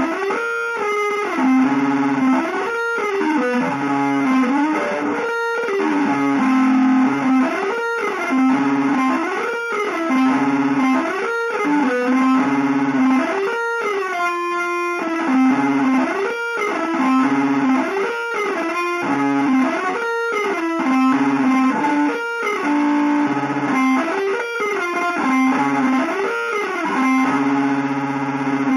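Electric guitar played through effects, repeating a short phrase of notes that bend up and down, about once every second and a half.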